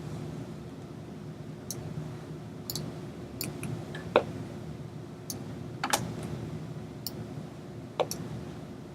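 Scattered sharp clicks from a computer being operated, irregular and a few seconds apart, with a few louder ones, over a steady low room hum.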